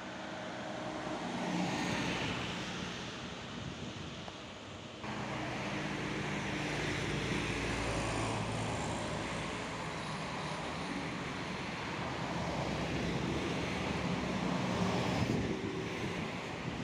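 Road traffic passing close by on asphalt: engines and tyre noise from a minibus, cars and motorcycles, swelling as each goes past. The level steps up suddenly about five seconds in and stays busier after that.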